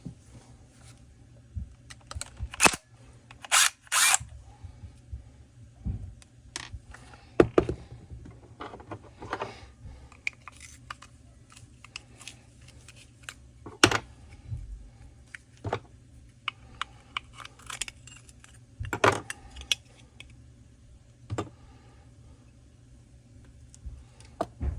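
Irregular clicks, taps and clatter of hand tools and small metal chainsaw parts being handled during a teardown, over a low steady hum.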